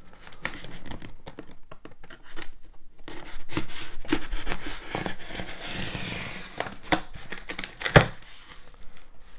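Clear packing tape being peeled and torn along the seam of a cardboard shipping box, a run of rasping tearing with cardboard scraping and rustling as the flaps are pulled apart. A single sharp knock near the end.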